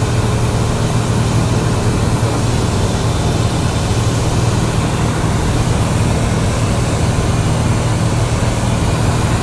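Cessna 172's piston engine and propeller droning steadily in flight, heard from inside the cockpit.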